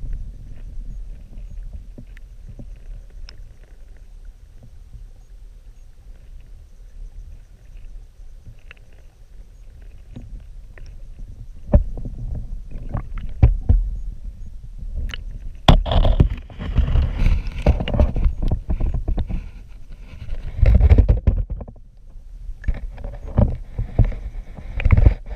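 Creek water rumbling and gurgling, heard muffled through a GoPro's waterproof housing held underwater. Scattered knocks start about halfway through, then two louder, busier spells of rumbling and clattering come near the end.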